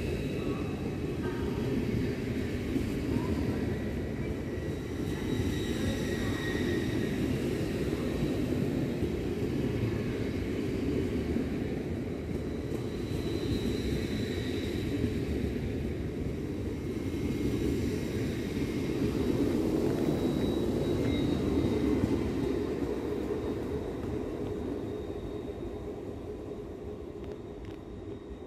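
LNER Azuma (Hitachi intercity multiple-unit) train running slowly along the platform: a steady low rumble with faint high whining tones over it, fading away over the last few seconds.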